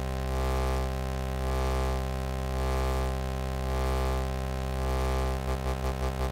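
Osci-render's synthesized oscilloscope audio: a buzzing tone near 66 Hz, rich in overtones, that draws the on-screen image as its bulge effect is changed to an inverse bulge. The tone swells about once a second, and near the end it starts pulsing about five times a second.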